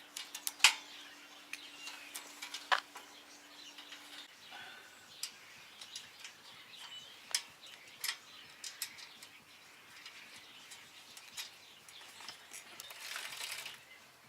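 Birds chirping, with scattered sharp clicks and knocks, the loudest about half a second in and again near three seconds. A steady low hum stops about four seconds in.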